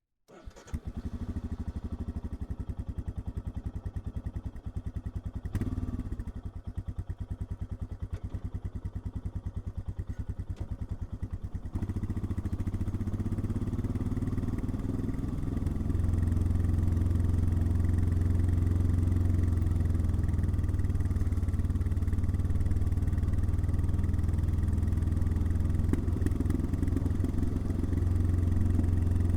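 Royal Enfield Himalayan's single-cylinder engine idling with distinct, evenly spaced exhaust pulses and a short blip of the throttle about five and a half seconds in. About twelve seconds in it becomes louder and steadier as the bike gets under way, and louder again a few seconds later.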